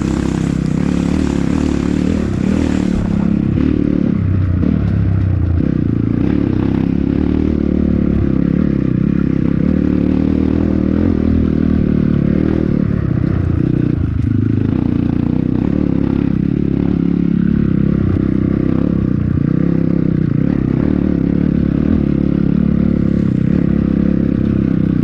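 Honda CRF150L's single-cylinder four-stroke engine running under way as the dirt bike rides a rough, muddy trail, with rattling from the bike over the bumps. The engine note dips and picks up again twice as the throttle is eased off and reopened.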